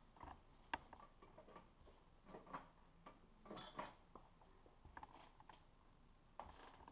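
Faint, scattered clicks and light knocks of an intake manifold being handled and settled into place on a Jeep 3.8L V6 engine, a few irregular taps a second or more apart.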